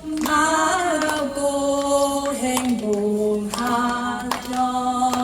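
A woman singing slow, drawn-out lines of a Buddhist verse song with no instruments, the notes held long and stepping down and up, with a few hand claps keeping time.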